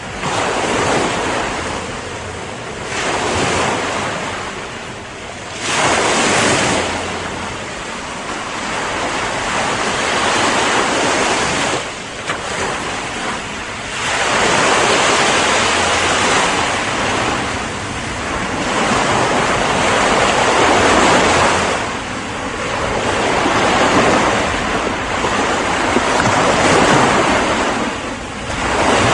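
Ocean surf: waves breaking and washing up one after another, the hiss of the water swelling and falling back every three to four seconds.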